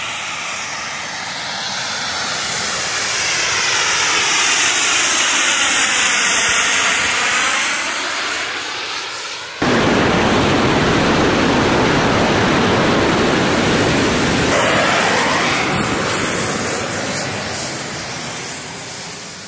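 Volonaut Airbike's jet propulsion running in flight: a steady jet rush that swells and fades as the bike passes by. About halfway through it cuts abruptly to a louder, closer jet rush that slowly eases off near the end.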